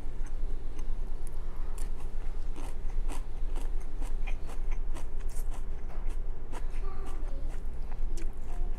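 Close-up chewing of crunchy stir-fried cabbage and rice: irregular crisp crunches and clicks. A steady low hum runs underneath.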